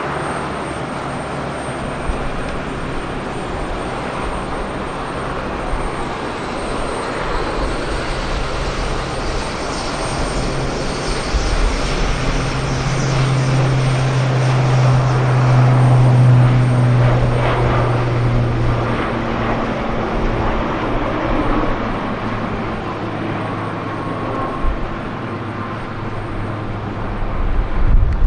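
Aircraft engines running, swelling to a peak about midway and easing off, with a steady low hum strongest at the loudest part.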